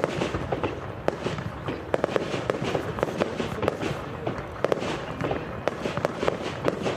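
Aerial fireworks display: shells bursting in a dense, irregular run of sharp bangs and crackles, several a second, over a steady background of noise.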